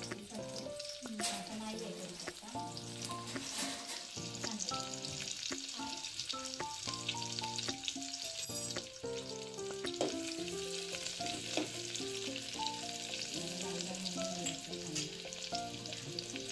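Chopped onion sizzling and crackling steadily in hot oil in an aluminium pot, frying toward reddish-brown for a tempering. A soft melodic tune of changing notes plays underneath.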